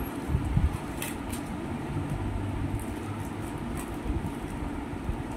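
A steady low rumble with a few faint, short clicks.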